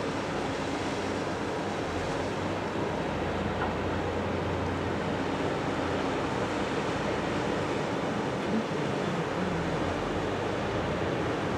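Steady wash of wind buffeting the microphone and river water, with a faint low steady hum underneath.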